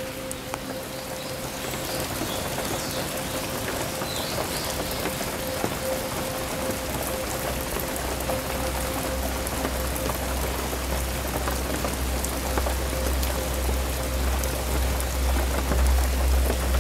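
Steady rain falling on foliage and the ground, with individual drops ticking close by. A low rumble joins about eight seconds in, and a faint steady hum runs underneath.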